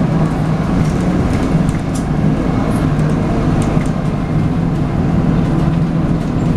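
MAN 18.240LF single-deck bus running under way, heard from on board: a steady diesel engine drone with the whining note that enthusiasts call 'hoovering', over road noise and a few light rattles.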